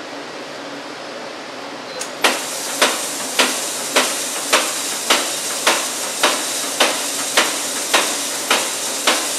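Mechanical sieve shaker starting about two seconds in, then running with a steady noise and a regular knock a little under twice a second as it shakes a nest of sieves holding an aggregate sample.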